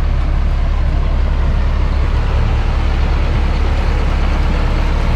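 Diesel engine of a John Deere tractor running steadily as the tractor drives off pulling an empty manure spreader, with a strong low rumble.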